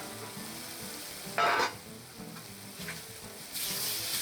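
Chicken pieces and sausages frying, a steady sizzle. A short louder burst comes about a second and a half in, and near the end the sizzle turns louder and hissier.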